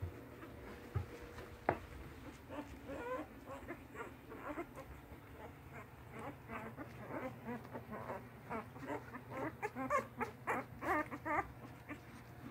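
English Mastiff puppies squeaking and whimpering: many short, high, wavering cries overlapping one another, getting busier after the first few seconds, over a low steady hum.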